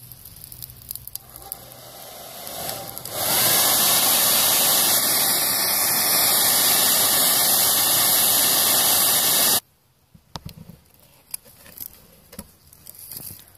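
A power tool runs loud and steady for about six seconds and cuts off suddenly. Before it there is quieter scraping that builds up, and after it a few light clicks.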